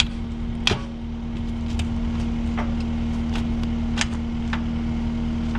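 Cat 259D compact track loader's diesel engine running steadily at idle, with a handful of short sharp metal knocks, several at uneven intervals, as the jammed quick-attach lever is worked.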